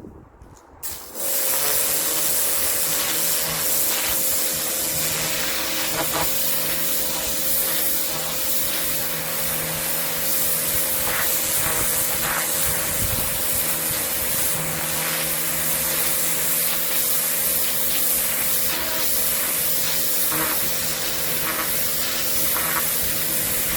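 Kärcher K7 pressure washer: quiet for about a second, then the pump motor cuts in and the jet sprays steadily, a constant hiss over a steady motor hum.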